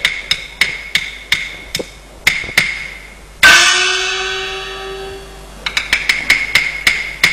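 Chinese opera percussion accompanying a Yue opera dance: sharp, clapper-like strokes in a loose, quickening rhythm. About three and a half seconds in, a gong is struck and rings for about two seconds, and then the rapid strokes resume.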